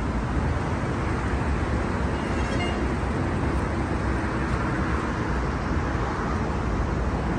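Steady outdoor background noise, a low rumble with hiss above it, such as city traffic and open-air ambience, with no clear single event.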